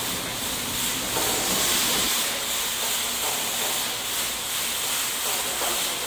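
Forklift-mounted open rotary sweeper brush spinning its bristles against a concrete floor: a steady hiss.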